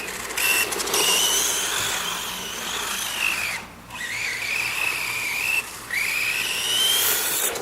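Hosim 1/12-scale rear-wheel-drive electric RC car's motor whining as it drives, the pitch rising and falling with the throttle and cutting out twice, over a hiss.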